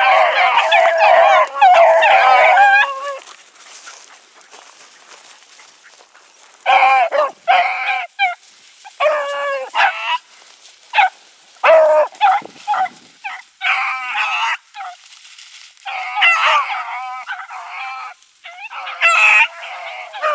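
A pack of young rabbit hounds baying on a rabbit's scent trail. Several voices overlap in a loud chorus for about the first three seconds, then after a lull come many separate bays and short chop barks.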